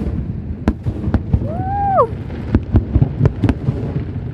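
Aerial fireworks shells bursting: a rapid, irregular run of sharp cracks and bangs over a steady low rumble.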